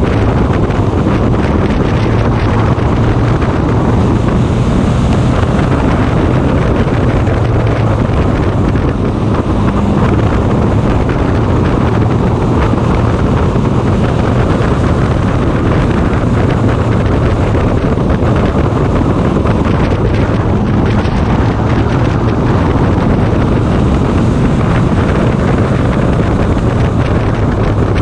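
A race car's engine running hard at racing speed, heard from a camera mounted on the car, with loud wind buffeting the microphone over a steady low engine hum.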